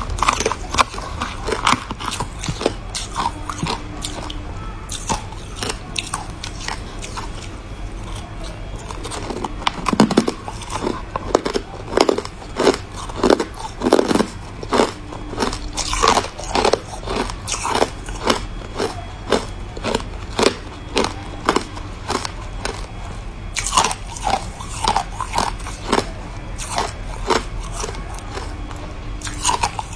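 Crushed ice being chewed: a continual run of sharp, brittle crunches, with the loudest bites coming about once a second through the middle stretch.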